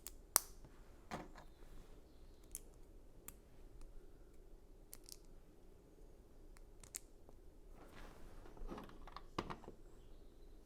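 Plastic Lego pieces being handled and snapped together, a scatter of sharp little clicks, the loudest about half a second in.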